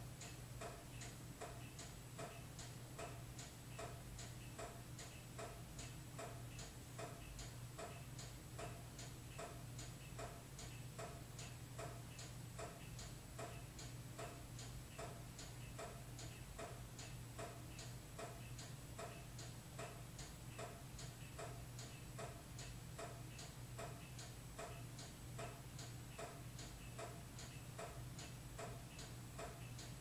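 Toyota Corolla's panic alarm going off with the horn unplugged, so all that sounds is the relays clicking steadily, about two to three clicks a second, in time with the flashing lights. A steady low hum runs underneath.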